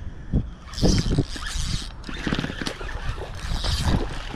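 Rustling and scraping as an action camera rubs against the wearer's arm and clothing, with scattered small thumps over a low wind rumble on the microphone.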